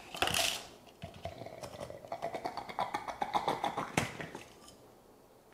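Crushed ice and ice chunks sliding and rattling out of a plastic blender jar onto a paper plate, with a sharp knock about four seconds in as the upturned jar meets the plate.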